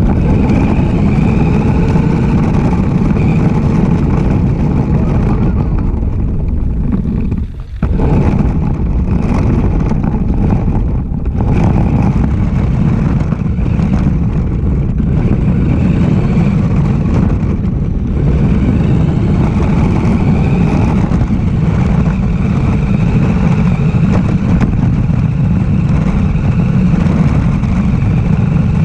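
Radio-controlled car driving, its motor and tyres running continuously with a brief drop about seven and a half seconds in.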